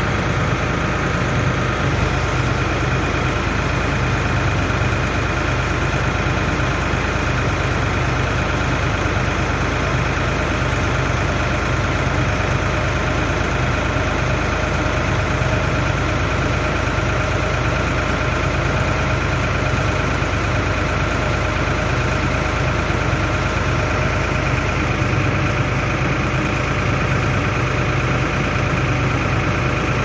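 Silage baler running steadily under power, a continuous engine-and-drive drone with a steady high whine, as it packs a bale of chopped maize and wraps it in film.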